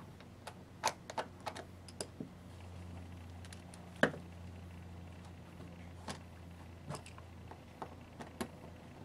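Scattered small clicks and taps as tinned copper wires are pushed into a plastic screw-down terminal connector and its screws are turned hand-tight with a small screwdriver, the loudest click about four seconds in. A faint steady low hum runs underneath.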